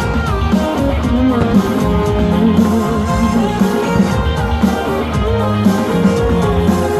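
Music led by guitar.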